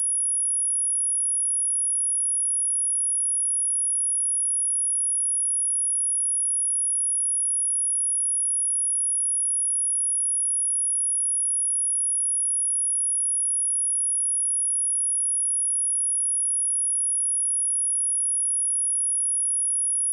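A steady, high-pitched pure sine-wave test tone at 10332 Hz, held unchanged.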